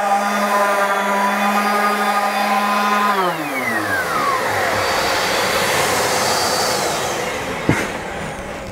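DeWalt random orbital sander running with a steady pitched hum while sanding wood. About three seconds in it is switched off and its pitch slides down as it spins to a stop. Underneath, the Nilfisk shop vacuum extracting through the sander's hose keeps up a steady rush, which dies away near the end.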